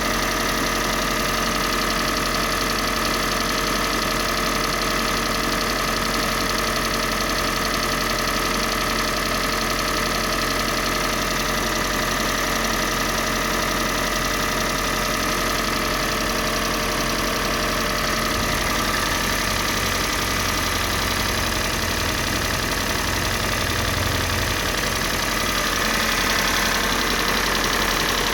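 Kia Sportage's G4NA 2.0-litre four-cylinder petrol engine idling steadily with an engine knock. The low rumble grows stronger for a few seconds past the middle.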